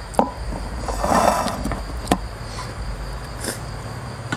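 Steady high chirring of crickets, with a few sharp knocks and a brief rustle close to the microphone about a second in: handling noise from a clip-on microphone that has fallen.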